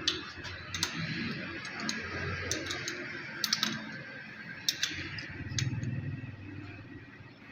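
Scattered light metallic clicks and taps of small diesel injection pump parts and hand tools being handled on a workbench, over a steady low background hum.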